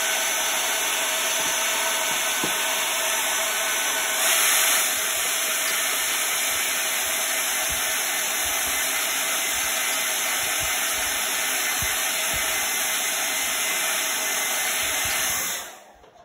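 Handheld hair dryer blowing steadily, briefly louder about four seconds in, then switched off near the end.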